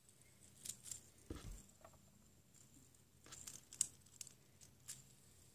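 Faint, scattered clicks and light taps as fingers handle a red plastic fidget spinner with a metal bearing, with one soft low thump a little over a second in. The spinning itself is barely audible.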